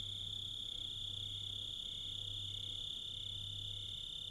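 Crickets trilling in one steady, unbroken high-pitched drone, with a fainter chirp repeating about every half second beneath it.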